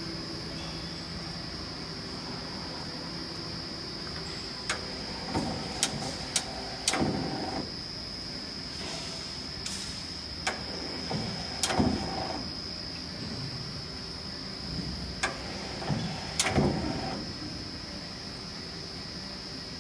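CK6140 CNC lathe running: a steady high-pitched whine with sharp clicks and short falling-then-rising motor sweeps that come in three bunches about five seconds apart.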